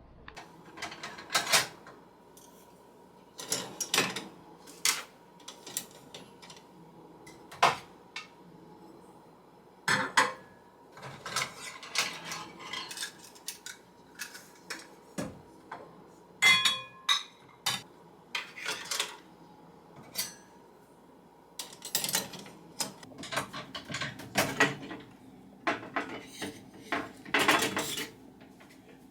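Dishes and cutlery being handled: irregular clinks and knocks of crockery and utensils, one of which rings briefly about halfway through.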